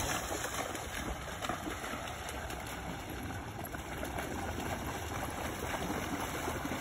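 Steady rush and gurgle of river water as a Labrador retriever swims out through it.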